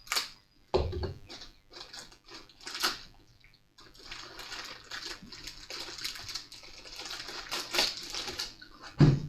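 Plastic packaging crinkling and rustling as a small parts bag is handled and opened by hand, with scattered clicks at first and steadier crackling in the second half. A dull thump about a second in and another near the end.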